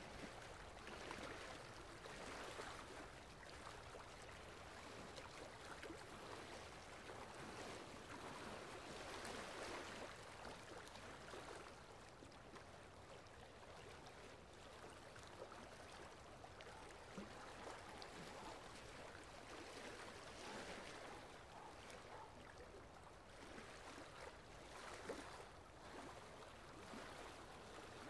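Near silence: a faint, steady wash of water ambience, like distant surf.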